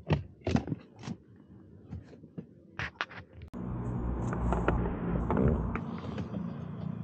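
Hard plastic clicks and knocks as the blower motor is twisted loose and pulled out of the heater-fan housing under the dashboard. About halfway in, a steady low hum and rumble starts abruptly and carries on.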